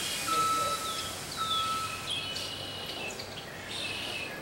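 Outdoor ambience at a busy bus stop with birds chirping. A high steady tone repeats about once a second through the first half.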